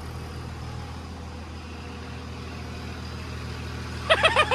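Rebuilt 2nd-gen Dodge Cummins 5.9-litre inline-six diesel idling steadily, just started for the first time after the rebuild. Near the end a short run of quick, pitched pulses sounds over it.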